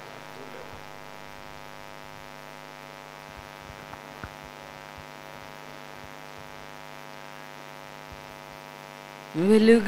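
Steady electrical mains hum through the microphone sound system, with a few faint clicks about four seconds in. A woman's singing voice comes in just before the end.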